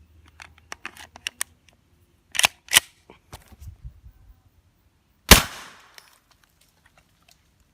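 Handling clicks from a handmade pistol, with two sharper metallic clacks about two and a half seconds in, then a single suppressed 9 mm pistol shot a little past five seconds, a sharp report with a short tail.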